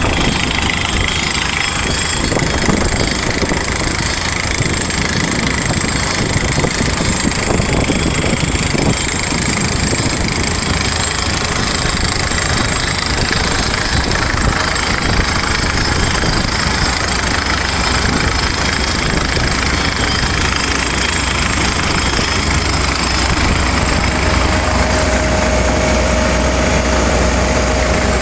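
HF140Y crawler DTH drilling rig running, its engine giving a loud, steady mechanical din with a deep rumble. A steady whine joins in near the end.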